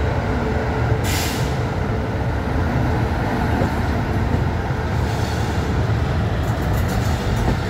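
Express passenger train pulling slowly out of a station, heard from an open coach door: a steady low rumble of the coach and its wheels on the track, with a short hiss about a second in.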